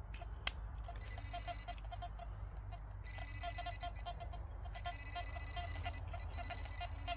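Handheld metal-detecting pinpointer (Nokta pointer) beeping in fast, even pulses, in bursts a second or two long with short breaks, as it is probed in and around the dig hole: its alert for metal near the tip. A sharp click about half a second in.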